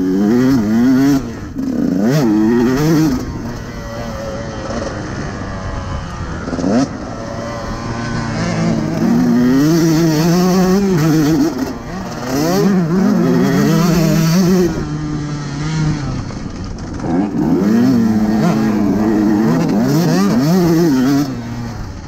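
KTM 150 SX single-cylinder two-stroke motocross engine being ridden hard on a track, revving up and down repeatedly as the throttle is opened and chopped. It is loud under throttle and drops to a lower, quieter note during several short off-throttle stretches.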